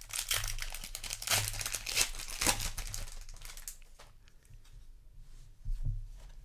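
Crinkling of a foil Magic: The Gathering booster-pack wrapper being handled, dense for about four seconds, then dying down to a few light clicks with a soft bump near the end.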